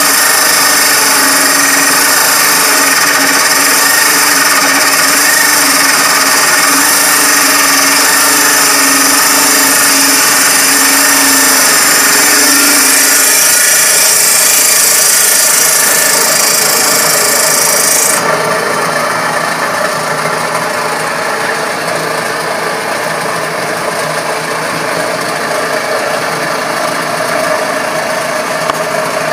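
Homemade table saw cutting a tenon cheek in a board fed upright through the blade against a jig. About 18 seconds in the cutting stops: the high hiss drops off and the saw keeps running free, somewhat quieter.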